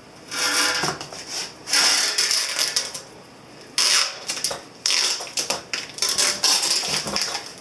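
Masking tape being peeled off a freshly painted gas tank, a crackling rip in several separate pulls with short pauses between.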